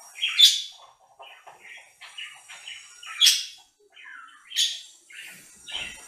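Pet budgerigars chirping and warbling: a continual soft chatter broken by three loud, sharp chirps, about half a second, three seconds and four and a half seconds in.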